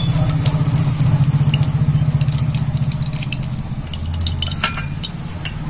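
Hot oil with freshly added ghee sizzling in a wide metal wok, with scattered sharp crackles and pops over a steady low hum.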